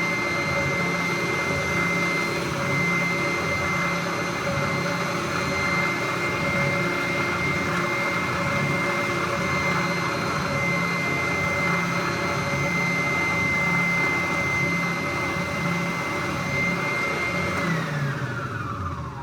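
Electric sander running steadily with a high motor whine while a wooden board's edge is sanded. Near the end it is switched off and the whine falls as the motor winds down.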